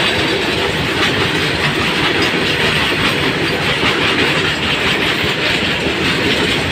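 Indian Railways freight train of open-top bogie wagons rolling past close by: a steady, loud rumble with the wheels clattering over the rails.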